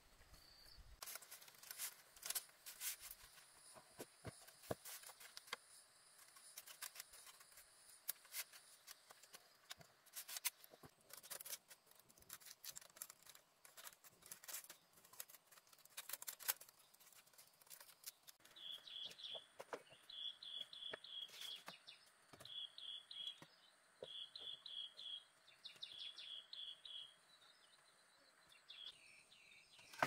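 Faint scattered clicks and light taps throughout. Over the second half, a bird calls in five or six short bursts of rapid high chirps, each about a second long.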